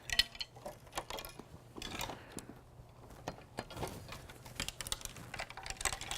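Irregular clicks and light knocks of a folding kayak's frame parts being handled and unfastened as the frame is taken apart.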